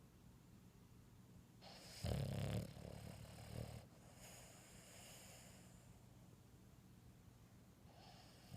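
Boston Terrier snoring: one loud snore about two seconds in, lasting about two seconds, then a softer breath and the next snore starting near the end.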